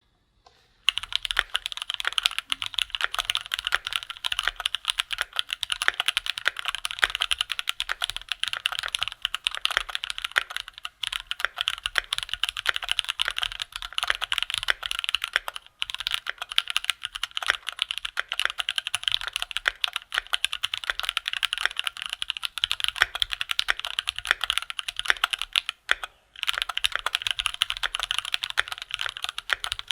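Fast continuous typing on a Keychron Q2 mechanical keyboard with Gateron G Pro Red linear switches, a steady stream of key clacks with brief pauses. It starts about a second in.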